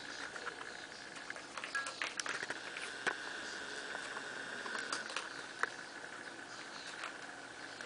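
Irregular light clicks and scuffles of paws and claws on the floor as a cat and a miniature pinscher wrestle, over a steady faint high hum.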